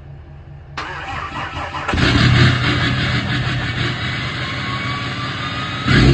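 Cummins 6.7 L turbo-diesel inline-six starting. It cranks about a second in, catches with a loud surge about two seconds in, then settles into a steady idle with a thin whine that slowly falls in pitch, and blips up again near the end.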